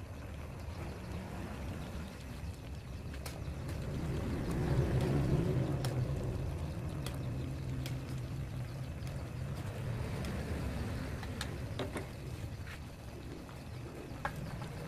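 Metal ladle clicking and scraping against a metal wok as broth is scooped out into a bowl, with sharp light clicks scattered throughout. Under it runs a steady low motor-like hum that grows louder about four seconds in.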